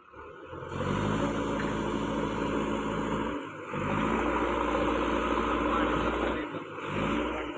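JCB 3DX backhoe loader's diesel engine revving as the backhoe arm digs, its pitch climbing each time it picks up. It drops away briefly twice, about three and a half and six and a half seconds in, then revs up again.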